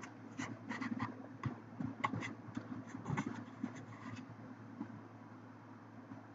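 A dozen or so irregular light clicks and taps over about four seconds, then they stop, over a steady low hum.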